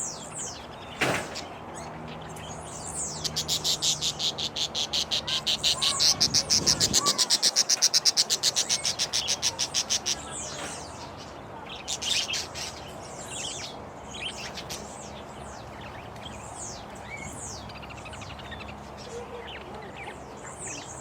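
Aviary birds calling: a fast, rapidly repeating chatter of about seven notes a second runs for about seven seconds, then gives way to scattered short, high chirps that fall in pitch. A single knock sounds about a second in.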